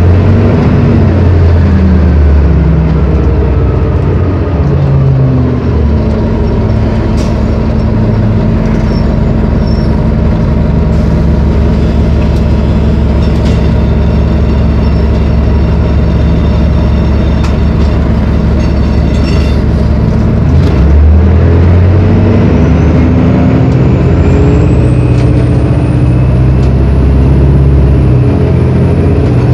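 Detroit Diesel Series 50 turbodiesel of a 1999 New Flyer D40LF city bus heard from inside the bus. The engine note shifts and falls over the first few seconds, then holds a steady low note for about fifteen seconds. From about three-quarters of the way in it rises again as the bus pulls away, with a high whine climbing alongside.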